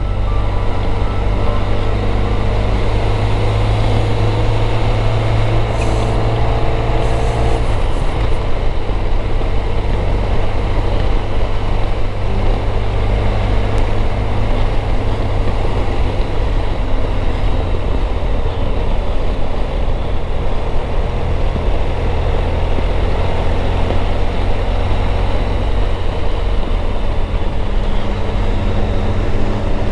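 Motorcycle engine running steadily at road speed, heard from on the moving bike, with wind and road noise over it. The low engine note changes about eight seconds in.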